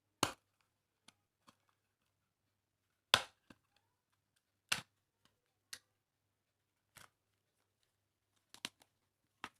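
Sharp, separate clicks and crackles of packaging being handled and opened, about one every second or so, the loudest about three seconds in.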